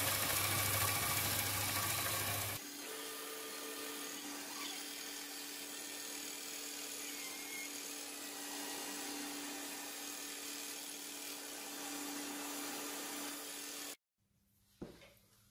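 Belt sander grinding a cast metal knife guard with a steady hum. About two and a half seconds in it gives way to a quieter, steady, higher-pitched whine of a handheld rotary tool running a sanding drum, which cuts off suddenly near the end.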